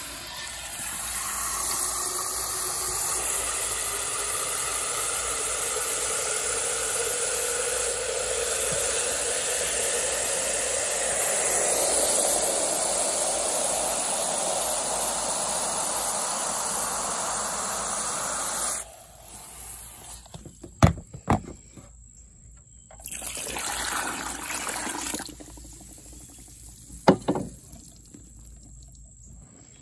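Water spraying from a garden hose nozzle into a plastic pitcher, running steadily for about nineteen seconds. After it stops there is a short splash of water being poured into a bucket, and a few sharp knocks.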